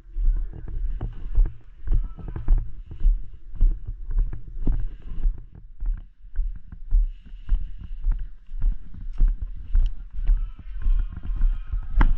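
Footsteps of a person walking along a trail, with clothing and gear rustling. The steps land as dull thumps at an even walking pace, a little under two a second.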